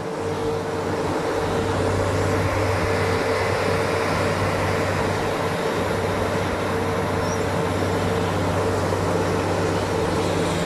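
Demolition excavators running: a steady diesel machinery drone with a constant hum held at one pitch.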